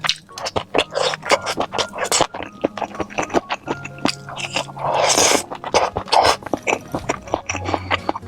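Close-miked eating of octopus in spicy sauce: rapid wet chewing, smacking and squelching clicks, with a longer wet rush of noise about five seconds in. Quiet background music runs underneath.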